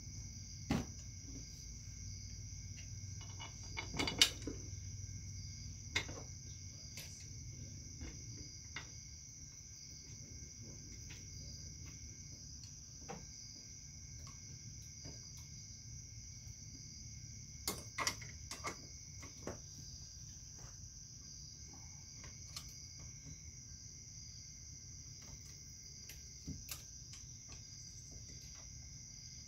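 Scattered clicks and knocks of hand tools and metal parts as the outboard's lower unit is bolted back on, the loudest about four seconds in, over a steady high chirring of insects.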